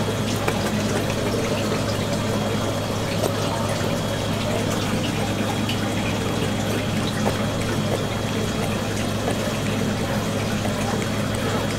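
Water circulating and trickling steadily in a live-fish holding tank, over a constant low hum from the tank's pump.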